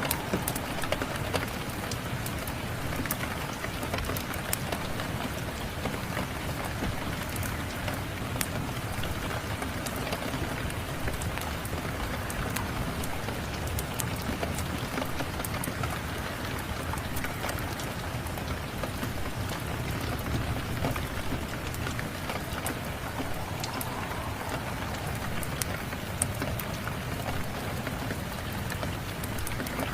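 Steady rain with scattered sharp crackles and pops from a wood fire, a few louder pops in the first couple of seconds.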